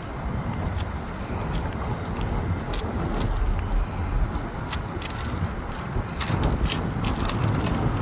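Scraping with scattered crackling clicks as a razor blade trims old urethane adhesive from the sunroof frame, over a steady low rumble.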